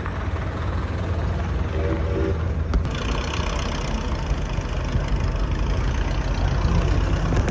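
Antique cars' engines idling together in a low, steady rumble, with a brief pitched tone about two seconds in.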